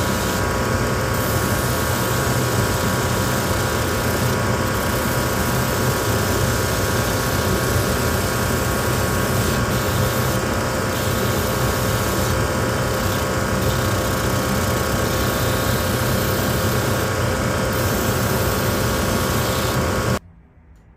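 Shoe-repair finishing machine running steadily during resoling: loud, even machine noise with several fixed humming tones, stopping abruptly near the end.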